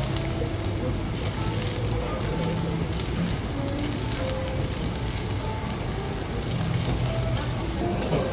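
Food sizzling steadily on a hot teppanyaki griddle, an even hiss.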